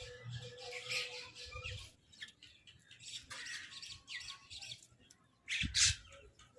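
Crows and mynahs squawking and chattering over food. A dense run of short harsh calls comes first, then scattered calls, and two loud calls close together near the end.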